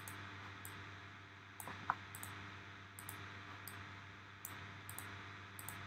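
Faint steady hum and hiss of a desk microphone, with a few soft computer-mouse clicks, one a little louder about two seconds in.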